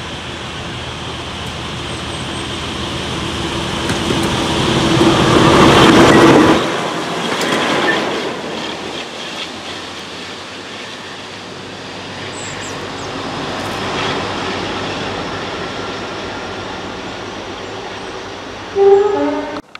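Diesel locomotive approaching and passing, its engine getting louder until it goes by about six and a half seconds in. The train then runs away with the clatter of wheels over the rail joints. Near the end there is a short loud horn blast.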